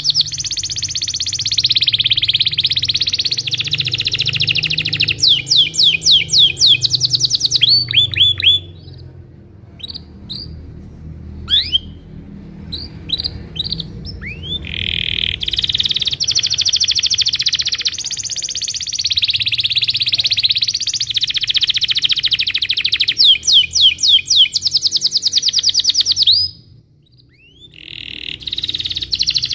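Domestic canary singing a long rolling song of fast trills and rapid repeated notes. About a third of the way in the rolling stops for several seconds, leaving a few scattered short chirps, then the trilling picks up again, with a brief break near the end.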